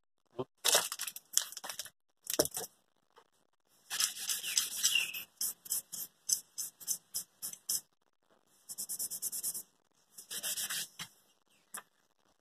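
Fine sandpaper scrubbing the soleplate of a Philips steam iron to clean off baked-on grime, in bursts of quick back-and-forth scratching strokes with short pauses between them.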